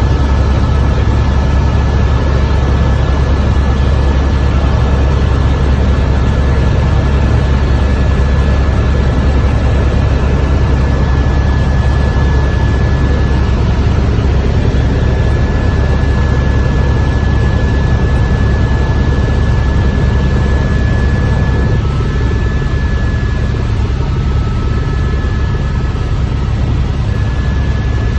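Tour helicopter in flight: a loud, steady low drone of rotor and engine, with a thin, steady high whine above it. It eases off slightly about two-thirds of the way through.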